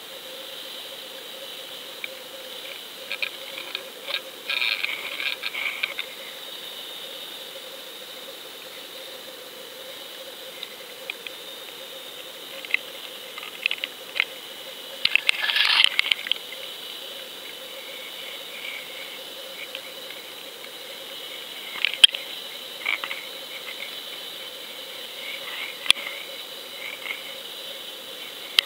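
Underwater recording: a steady high hum with scattered clicks and crackling over it. The crackling comes in clusters, the loudest just after fifteen seconds, with sharp single clicks later on.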